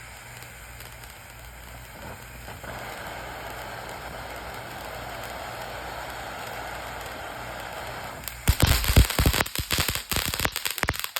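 A lit ground firework hissing steadily for about eight seconds, growing a little louder early on, then breaking into a rapid, loud string of crackling pops and cracks.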